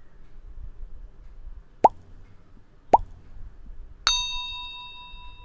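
Subscribe-button animation sound effects: two short rising pops about a second apart as the like and subscribe buttons are clicked, then a bell ding with several tones that rings out and fades.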